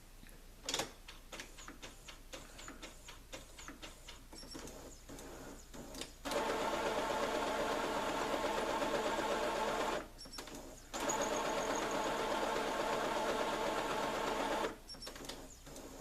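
Brother inkjet printer running its print head cleaning cycle: a run of clicks, then two stretches of steady buzzing motor noise, about four seconds each, with a short pause between.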